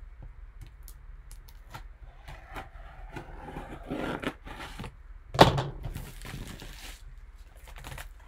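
A blade slicing through the sealing tape and plastic shrink wrap of a cardboard box, a scraping cut with small clicks and plastic crinkling. One sharp loud knock comes about five seconds in.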